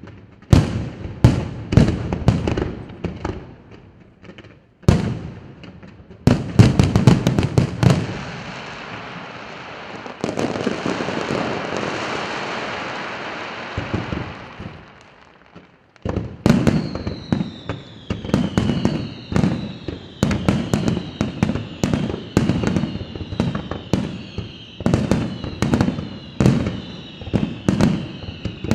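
Aerial firework shells bursting in quick succession, then a long crackling shower of glittering stars that fades away. About halfway in, a rapid barrage of bangs begins, with several whistles sliding slowly down in pitch over it.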